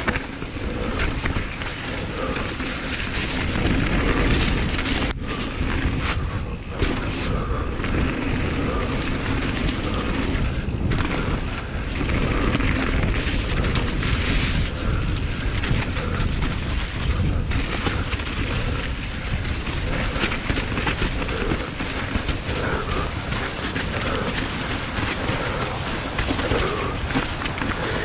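Mountain bike descending a wet, muddy downhill trail: steady wind rush and tyre noise with a low rumble, and rattles and knocks from the bike over the rough ground.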